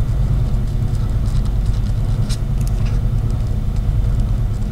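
Pen writing on paper: faint, scattered scratches of the tip over a steady low hum that runs throughout.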